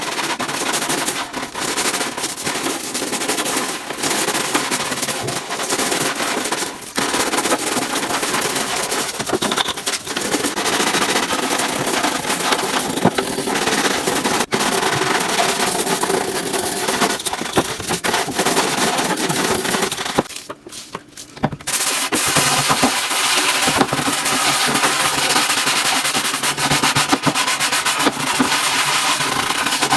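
Kitchen-cleaning noise: dense, steady crackling and scrubbing full of rapid small clicks, breaking off briefly about two-thirds of the way through.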